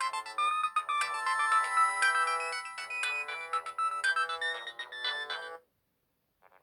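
Nokia 1200 ringtone playing: a busy synthesized melody of quick electronic notes, several sounding at once. It stops suddenly, and after about a second of silence the next ringtone begins quietly with short, evenly repeated beeps near the end.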